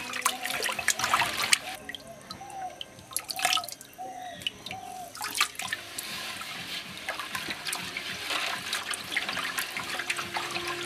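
A hand stirring and squeezing flour into milk in an aluminium pot, the liquid splashing and sloshing irregularly.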